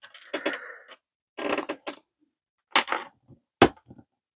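Plastic joints of a 1:12-scale Valaverse Steel Brigade action figure creaking and clicking as the figure is gripped and turned, in several short spells with a sharp click near the end.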